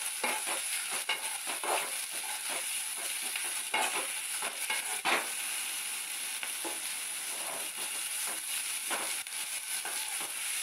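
Chopped onion, tomato and green chilli sizzling as they fry in oil in a metal kadai, with a steel spoon stirring them and scraping and knocking against the pan at irregular intervals, the loudest knocks about four and five seconds in.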